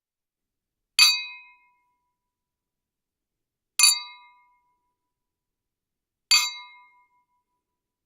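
Drinking glasses clinked together in a toast: three separate clinks, about two and a half seconds apart, each ringing briefly and dying away.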